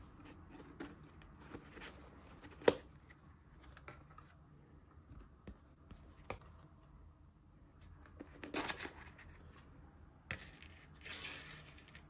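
Packaging of a ready meal being handled: a cardboard sleeve slides off and a plastic bowl and clear plastic lid click and tap, with one sharp click about three seconds in. Near the end there is a crinkly rustle as the plastic lid comes off.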